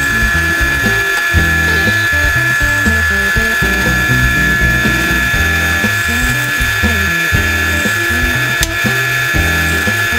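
Drill press running, its twist bit boring dowel holes into a softwood board with a steady motor whine, over background music with a stepping bass line.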